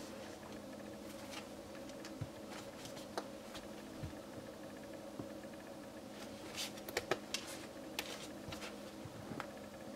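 Soft rustling and small crackles of a slow-rising polyurethane foam donut squishy being squeezed and kneaded by hand. There is a brief cluster of sharper ticks about two thirds of the way through, over a steady low hum.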